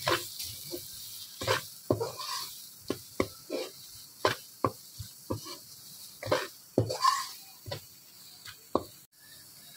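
Metal spoon scraping and knocking against a karahi in irregular strokes while stirring onions and flour in hot oil, over a faint sizzle; the flour is being roasted to cook out its rawness.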